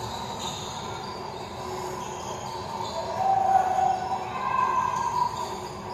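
Live basketball game audio in an arena: crowd noise with a ball being dribbled on the hardwood court.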